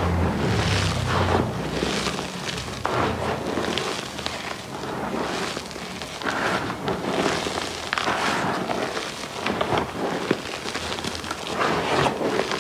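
Hands squeezing and crumbling lumpy powdered gym chalk, a dry crunching and crackling that comes in irregular surges, one squeeze after another.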